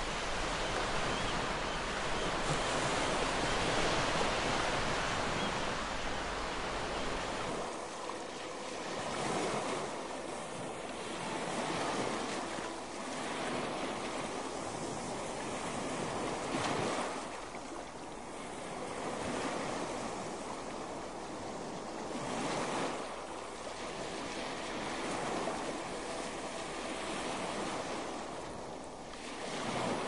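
Ocean surf breaking and washing up a shore: a steady rush of water noise that swells and falls back every few seconds as each wave comes in.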